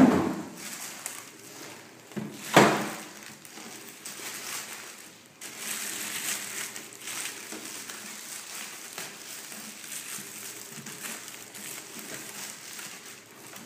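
Two heavy thumps in the first few seconds, then a clear plastic protective bag crinkling and crackling as it is pulled off a printer.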